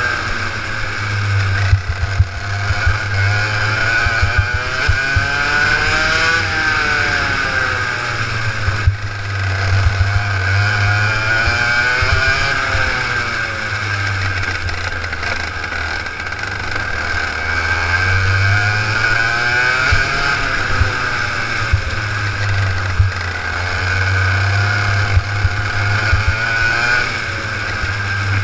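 Two-stroke kart engine heard from on board, its pitch climbing in long sweeps and dropping back several times as it accelerates and lifts around the lap.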